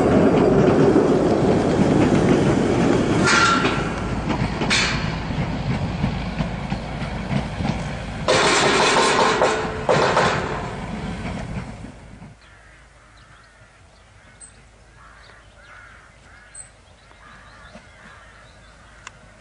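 Tram rolling past close by on its rails: a loud rumble of wheels on track, with short bursts of harsher noise, the longest between about 8 and 10 seconds in. About 12 seconds in it gives way to a quiet outdoor background with birds chirping.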